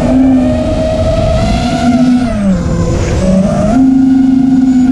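ImmersionRC Vortex 230 racing quadcopter's brushless motors and propellers whining in flight, heard from the onboard camera, with wind noise underneath. The pitch follows the throttle: it sags for a couple of seconds from about two seconds in, then jumps sharply back up near the end.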